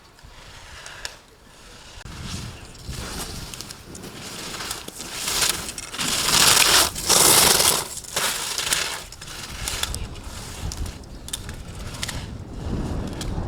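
Skis scraping and carving across hard-packed snow, a rough hiss that swells through the middle to its loudest for about two seconds, then eases, with a few short clicks.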